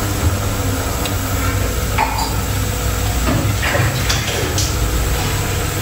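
A few light clinks and knocks of kitchen utensils against a cooking pot, over a steady low hum.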